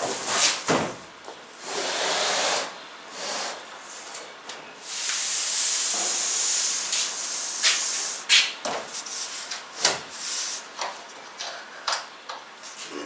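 A large thin panel being slid and pressed against the upright bed of a big vertical CNC router. It makes long hissing scrapes as it rubs along the bed, with several sharp knocks and bumps as it is shifted into place.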